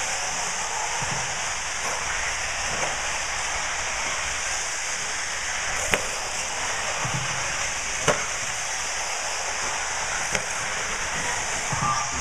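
1/8-scale RC off-road buggies racing on an indoor dirt track: a steady high hiss of motors and tyres, broken by sharp knocks about six, eight and ten seconds in, the one near eight the loudest.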